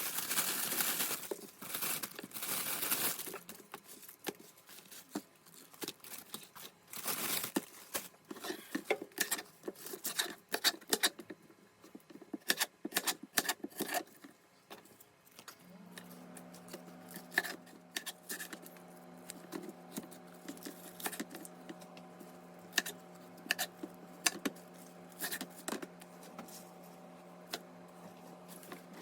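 Kitchen handling sounds: irregular clicks, taps and crinkling as food is prepared, after a few seconds of hissing at the start. A steady low hum comes in about halfway through.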